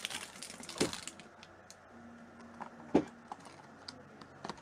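Clear plastic lure packaging being handled: crinkling for about the first second, then a few sharp clicks and taps of the plastic, the loudest about three seconds in.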